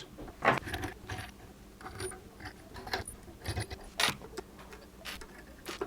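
Scattered light metallic clicks and clinks, the loudest about four seconds in: BNC connector nuts being loosened with a wrench and spun off the radio's back panel by hand.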